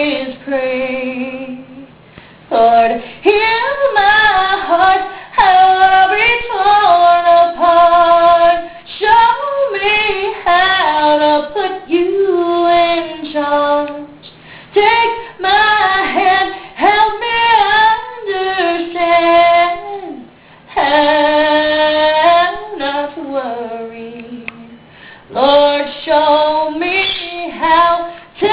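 A high, wordless singing voice in melodic phrases of a few seconds each, with sliding pitch and short pauses between them.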